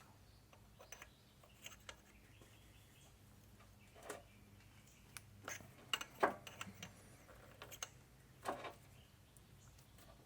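Faint, scattered metallic clicks and clinks of an anodized aluminium AN wrench on an AN hose fitting as it is handled and tightened, a dozen or so light taps spread a second or more apart, the clearest in the second half.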